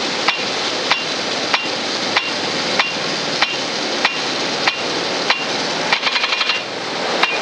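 Rain gun sprinkler running: its impact arm strikes the jet with a sharp metallic tick about every 0.6 s, over the steady hiss of spraying water. About six seconds in comes a quick rattle of clicks.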